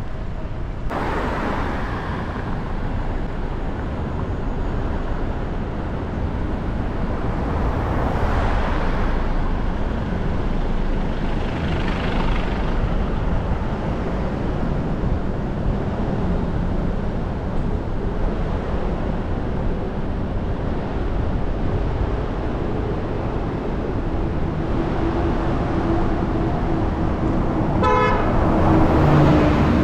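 City street traffic: a steady rumble of vehicles, with several louder swells as vehicles pass, a steady engine-like tone in the last few seconds and a short horn toot near the end.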